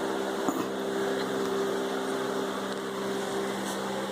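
A steady mechanical hum at a constant pitch under a rushing whir.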